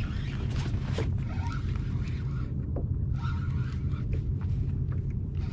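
Wind rumbling steadily on the microphone while water splashes and laps against a fishing kayak in uneven patches, with a few small knocks.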